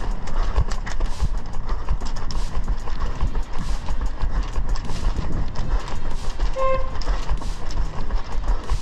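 Running on pavement heard through a head-mounted action camera's microphone: a steady wind rumble with rhythmic footfalls, about two or three a second. A short beep sounds about two-thirds of the way through.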